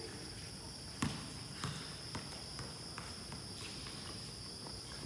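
A netball bouncing and shoes scuffing on a concrete court: one sharp knock about a second in, then a scatter of lighter taps. Behind them runs a steady high-pitched chirring of night insects.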